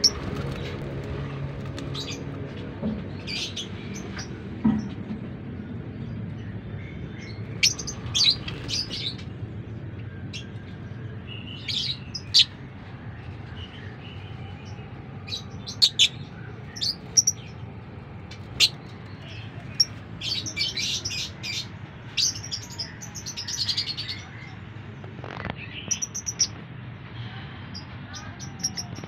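Euwing mauve lovebird in a wire cage giving short, shrill chirps at irregular intervals, over a steady low hum.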